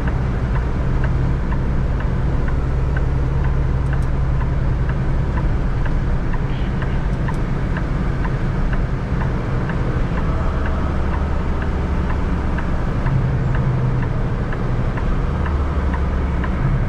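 Inside a 2023 Kenworth T680's cab while driving: the engine's steady low drone and road noise, the drone's pitch shifting a few times. A faint regular ticking runs through it, about twice a second.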